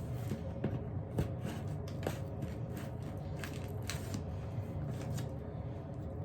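A mailed package being worked open by hand: scattered scraping, rustling and small ticks as a blade or fingers work at the packaging, over a steady low hum.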